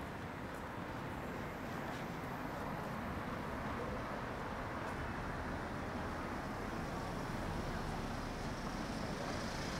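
City street ambience: a steady wash of traffic noise.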